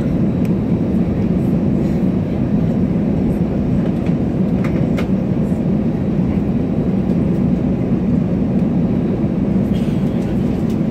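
Steady rumbling cabin noise of an Airbus A319 taxiing, heard inside the cabin: the hum of its CFM56 engines at idle with the rumble of the wheels on the taxiway, and a few faint clicks about halfway through.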